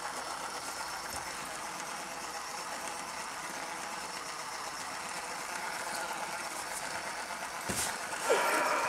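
A Boxer puppy playing with a plastic toy ball on a puppy pad: a steady low hiss with faint scattered clicks, then a thump near the end followed by a louder scuffling noise.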